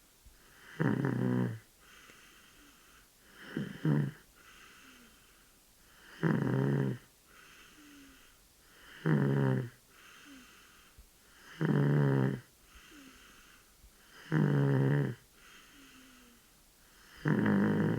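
A 13-month-old baby snoring in sleep: seven evenly spaced snores, one about every two and a half to three seconds, with softer breaths in between.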